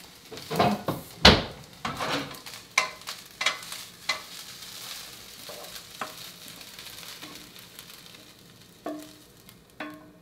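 Karaage fried rice stir-frying in a frying pan: steady sizzling, with a utensil knocking and scraping against the pan many times in the first few seconds, then quieter sizzling. Plucked-string music comes in near the end.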